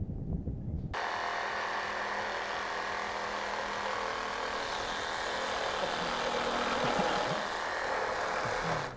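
Reciprocating saw cutting through a wooden framing beam. It starts suddenly about a second in, runs steadily through the cut, and stops just before the end.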